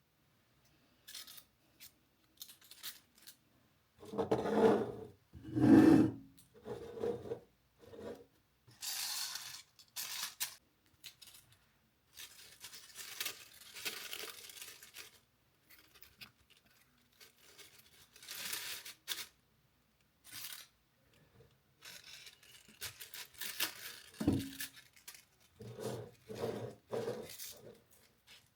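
Irregular rustling, tearing and scraping from hands handling a material such as paper or wrapping, with a few soft knocks and one sharper knock near the end.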